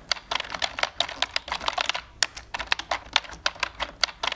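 Typing sound effect, rapid irregular keystroke clicks, several a second, as the on-screen caption types itself out letter by letter.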